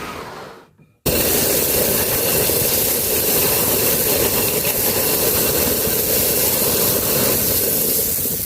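A foley sound effect: a loud, steady rushing hiss that starts abruptly about a second in, after a brief silence, and stops near the end.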